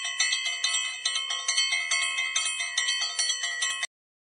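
Bell-like intro chimes: several bright bell tones ringing together, struck again and again about four or five times a second, that stop abruptly near the end.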